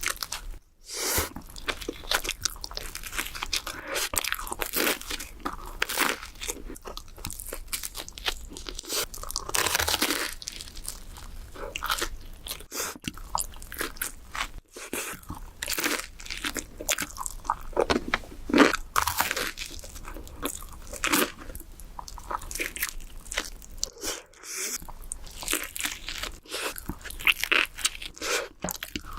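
Close-miked biting and chewing of pizza: crisp crust crunching in a dense, irregular run of bites, broken by a few brief gaps.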